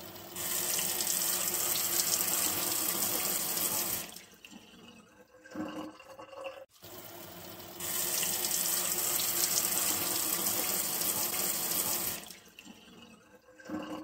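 Bathroom tap running full into a sink basin, water splashing over hands being washed. The loud, steady rush lasts about four seconds, drops to quieter splashing, then comes back about eight seconds in and drops away again near the end.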